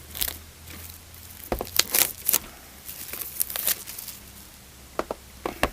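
Plastic shrink-wrap crinkling and a cardboard trading-card box being handled and opened: irregular crackles and taps in clusters, with a few more near the end.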